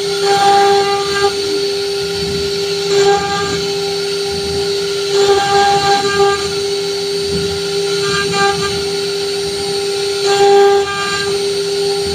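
CNC router spindle whining at a steady high pitch while its engraving bit cuts a design into a wood panel. The cutting swells louder every two to three seconds as the bit works along the carved lines.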